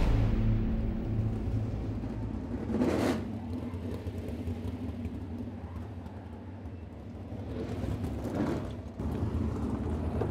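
Low, steady rumble of racing engines, with a rushing whoosh about three seconds in and another near the end.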